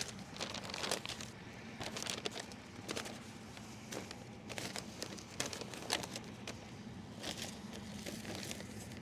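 Irregular light crinkling, rustling and clicking handling noises from hive materials being worked by hand, over a faint low steady hum.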